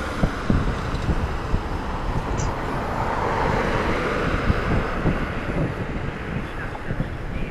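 Wind buffeting the microphone of a moving electric bicycle, over road and traffic noise that swells and fades around the middle, as a vehicle passing by would.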